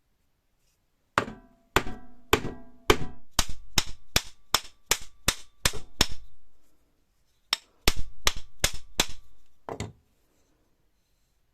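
Hammer blows with a short metallic ring, about two or three a second: a run of about a dozen, a pause of a second or so, then about six more.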